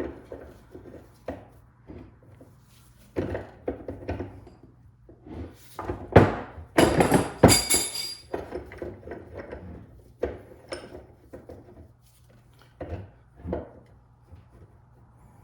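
Metal parts of a driveshaft U-joint knocking and clinking as the cross is worked through the yoke to free a bearing cap. Irregular knocks, with a cluster of louder sharp metallic hits that ring briefly about six to eight seconds in.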